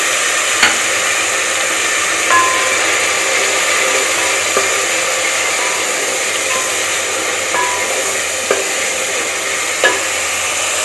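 Onion-tomato masala with freshly added ground spices sizzling as it fries in a metal pot, stirred with a spatula. About six light knocks and scrapes of the spatula against the pot ring out briefly through the frying.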